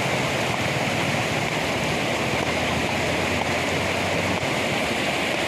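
Steady rush of floodwater, an even wash of noise with no breaks.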